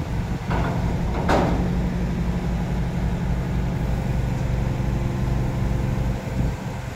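Heavy diesel engine running steadily with a deep, even hum, under lifting work on a shipping container. About half a second and just over a second in come two short hissing or clanking bursts.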